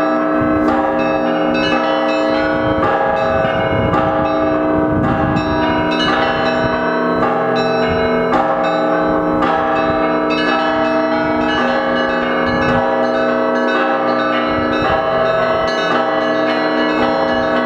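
Russian Orthodox monastery bell ringing (zvon): many bells of different pitches struck in a quick, continuous rhythm, their tones ringing on over one another.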